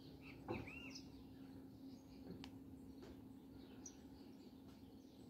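Faint birdsong: scattered short chirps and whistled calls over a quiet background with a low steady hum, and one soft knock about half a second in.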